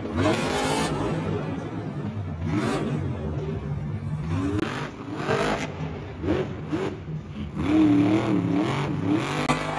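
Megalodon monster truck's supercharged V8 engine revving hard in repeated rising and falling bursts, with a fast wavering run of throttle blips near the end, over the steady noise of a stadium crowd.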